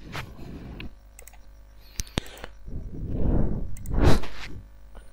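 Two sharp clicks about two seconds in, from typing at a computer keyboard, amid a few soft rushes of noise; the loudest rush comes about four seconds in.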